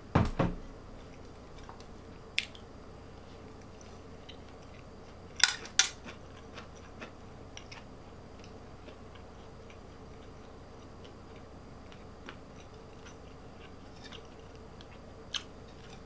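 Close-miked eating: quiet chewing of fried rice and chicken with scattered small mouth clicks. A few sharper clinks of a utensil on a dish stand out: one at the start, one a couple of seconds in, and a quick pair about five and a half seconds in.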